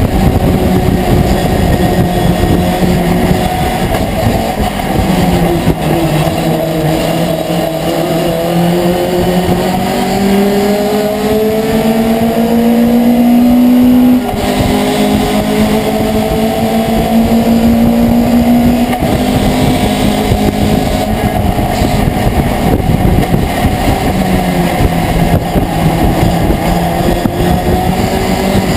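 Racing pickup truck's engine heard from inside the cab under hard acceleration, its pitch climbing steadily, dropping sharply at an upshift about halfway through, then climbing again before settling to a lower, steadier note.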